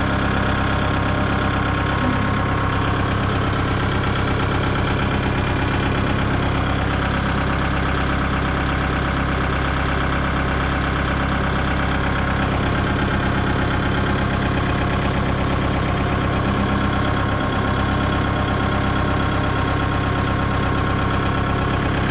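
Kubota MU-5501 tractor's four-cylinder diesel engine running steadily, with the rear hydraulic lift being raised and lowered. The engine's note shifts slightly a few times.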